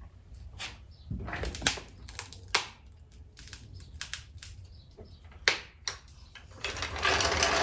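Sharp metal knocks and clicks from a hydraulic floor jack as it is worked and let down, setting the car onto a furniture dolly. From about seven seconds in comes a loud, steady rattling rumble as the floor jack is rolled out across the concrete floor.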